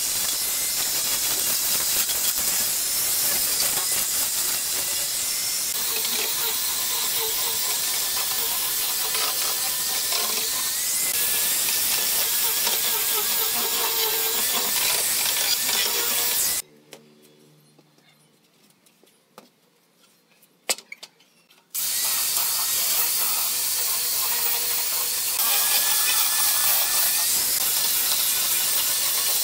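Handheld angle grinder sanding pallet-wood boards: a steady high hiss of the disc against the wood over the motor's whine. It stops for about five seconds past the middle, leaving near silence with a few faint clicks, then starts again.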